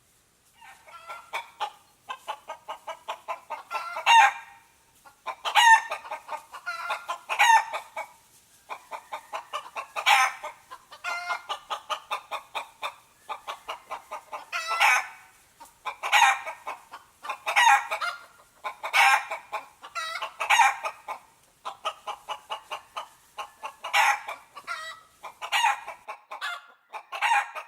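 A chicken cackling: runs of quick clucks, each building into a louder squawk, over and over.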